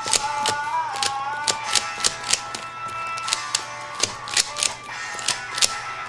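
Plastic 3x3 Rubik's cube clacking as bare feet turn its layers, irregular sharp clicks several a second. Music plays underneath.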